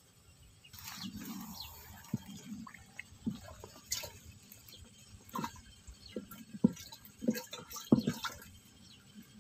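Small water plops and splashes at the pond surface, irregular, about one a second, with the sharpest two about two-thirds of the way through and near the end.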